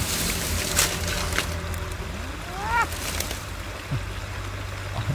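Shallow river flowing over stones, a steady water rush under a low hum, with a few light clicks and one short rising call about two and a half seconds in.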